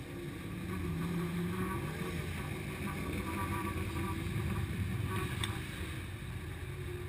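Low, steady rumble of sprint car engines running, with wind on the microphone.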